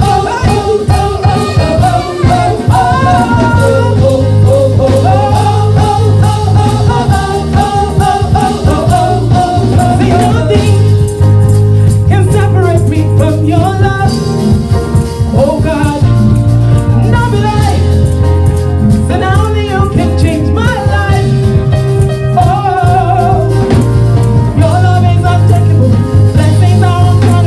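Live gospel praise-and-worship singing. A lead singer and backing vocalists sing over instrumental backing, with a bass line and a steady beat.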